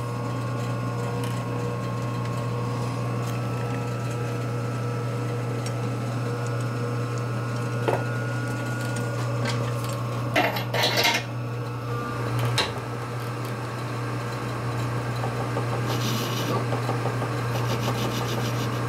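Metal lathe running with a steady low hum. About halfway through come several sharp metallic clanks and knocks, and a little before the end a brief scratchy hiss as the tool cuts the spinning part.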